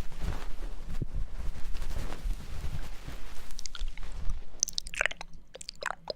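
Close-miked ASMR ear-cleaning sounds: an ear tool rubbing and scratching against the microphone's ear, first as a dense rustle, then, after a few seconds, as sharp crackling clicks.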